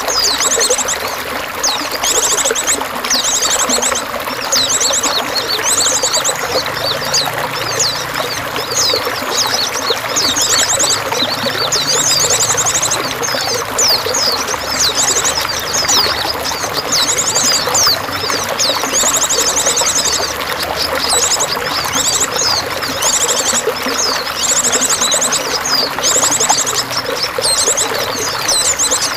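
Running water with a steady pouring and trickling flow, and small songbirds chirping in quick, high trills over it again and again.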